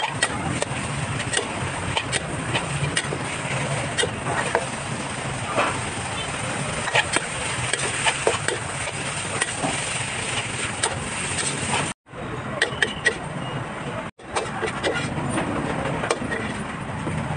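Busy street and market ambience: traffic of passing vehicles under background chatter, with scattered clinks and knocks. The sound cuts out abruptly twice, about twelve and fourteen seconds in.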